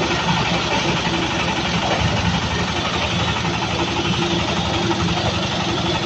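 Diesel engine of a JZR350 concrete mixer running steadily, with an even, rapid low pulse.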